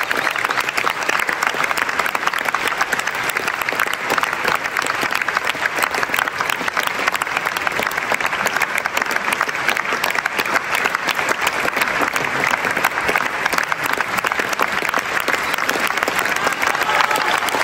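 Theatre audience applauding steadily, many hands clapping at once in a dense, even patter.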